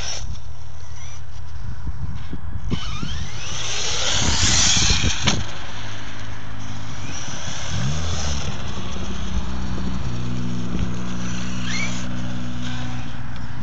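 Brushless electric RC buggy (a converted HPI Savage Flux HP) driving on dirt and concrete, its motor whine rising as it accelerates. About four to five seconds in, a loud rush of tyres spraying dirt ends in a sharp knock.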